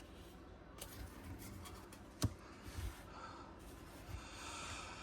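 Faint handling of Pokémon trading cards: light scratchy rustling with a single sharp click about two seconds in.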